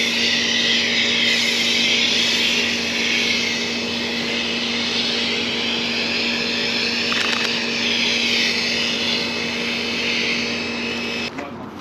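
Pressure washer running with a foam cannon, spraying foam onto a car: a steady hiss of spray over a constant motor-and-pump hum. It cuts off suddenly near the end.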